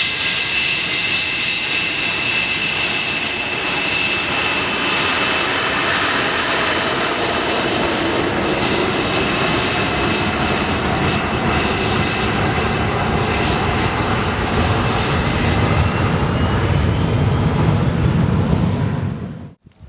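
English Electric Lightning's Rolls-Royce Avon jet engines running loud, with a high whine over a steady roar. The low rumble builds over the last few seconds, then the sound cuts off suddenly near the end.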